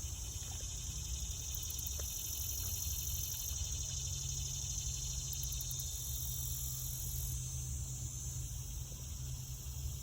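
Steady outdoor chorus of insects trilling in rapid, high-pitched pulses, with a higher buzzing layer that starts and stops, over a low rumble.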